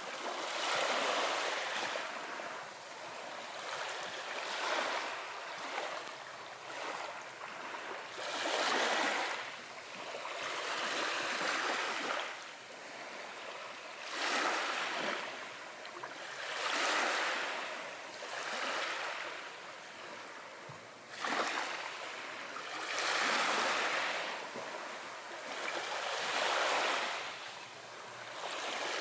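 Waves washing onto a beach, a hiss that swells and fades every two to three seconds.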